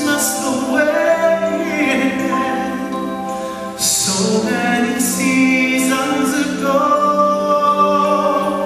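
A male singer's live vocal ballad sung into a handheld microphone, held and gliding notes over instrumental band accompaniment.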